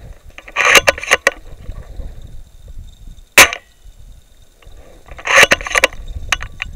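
Novritsch SSG24 spring-powered bolt-action airsoft sniper rifle fitted with an airbrake: a quick run of clicks as the bolt is worked, one sharp shot about three and a half seconds in, then another run of bolt clicks near the end.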